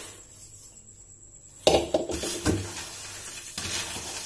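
Metal cookware clattering as fried makhana (fox nuts) are tipped from a wok into a tall steel pot of poha chivda. About one and a half seconds in comes a sudden loud clang of metal on metal, then a few lighter knocks and the dry rustle of the snack mix being worked.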